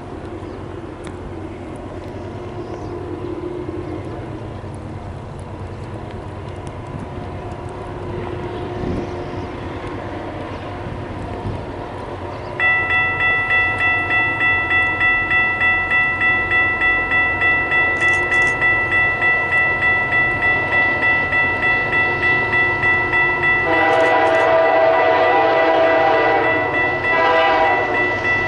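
A Canadian Pacific AC44CW freight locomotive approaches with a low rumble. Partway through, a railroad crossing bell starts ringing, about two strokes a second, and keeps on. Near the end the locomotive sounds a long multi-tone horn blast, the loudest sound.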